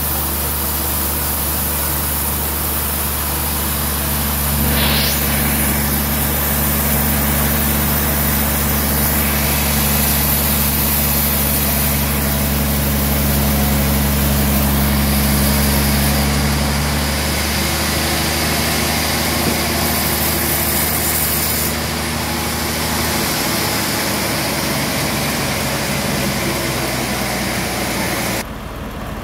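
Band sawmill running and sawing through a trembesi log: a steady, loud motor hum under a high hiss from the blade. A brief rising whine comes about five seconds in, the running note shifts twice later on, and the level drops near the end.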